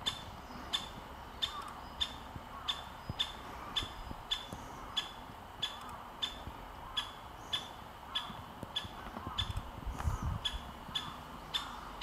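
A bird's short, sharp call repeated steadily, a little under two times a second, with a faint low rumble about nine to ten seconds in.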